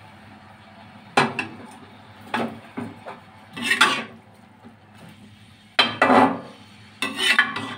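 Steel spatula scraping and knocking against a metal kadhai as chopped green onions are stirred: a series of sharp clanks and scrapes, with a longer drawn-out scrape about four seconds in.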